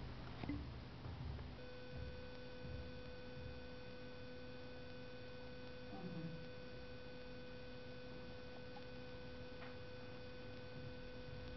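A faint, steady high-pitched electronic tone with fainter overtones, starting about one and a half seconds in. About six seconds in there is a brief soft falling whine, from the toy poodle whimpering in its sleep.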